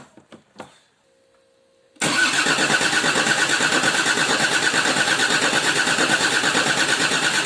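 Land Rover Discovery II Td5 five-cylinder diesel being cranked on the starter motor, an even pulsing churn of about ten beats a second that starts suddenly about two seconds in and carries on without the engine catching. The engine turns but won't start, which the mechanic suspects is a fuel pressure problem.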